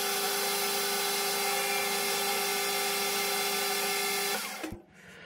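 Metal lathe running with its tool cutting the spinning bar: a steady whine with a few fixed tones. About four seconds in it is switched off and the whine stops, with a brief falling tone as the spindle winds down.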